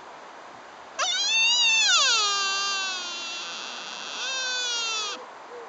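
Sika deer stag giving one long, high cry that starts about a second in, rises and then slides down in pitch, swings up again near the end and stops abruptly.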